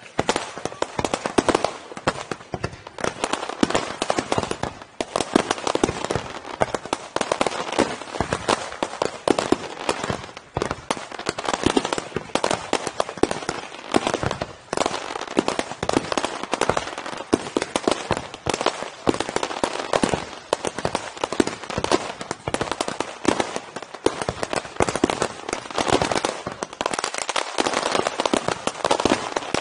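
Fireworks display by Pirotecnia Ricardo Caballer (RICASA): a dense, unbroken barrage of rapid pops and cracks as many low-level shells and comets go off in quick succession.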